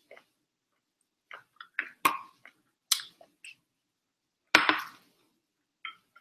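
Tableware being handled: a glass food container's plastic lid taken off, and metal chopsticks working in the glass bowl of rice. A series of short clicks and clinks, the loudest a single knock about four and a half seconds in.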